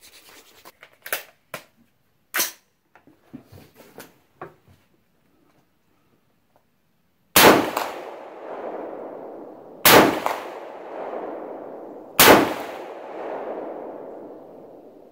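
A few light clicks and knocks of the rifle being handled, then three shots from an AR-15 chambered in .223 Wylde, about two and a half seconds apart. Each shot is followed by a long rolling echo that dies away over about two seconds.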